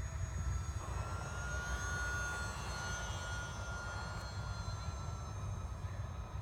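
Radio-controlled model airplane flying past, its motor and propeller making a steady high whine that swells about a second in and slowly drops in pitch toward the end, over a steady low rumble.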